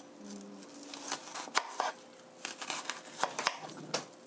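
Chef's knife cutting into a halved onion on a plastic cutting board, scoring it: crisp cuts with irregular sharp knocks of the blade on the board.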